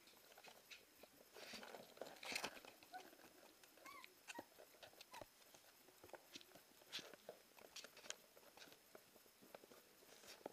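Faint sounds of a Siberian husky puppy on a tile floor: scattered light clicks of its claws on the tiles, with a few short, high whimpers about three to five seconds in.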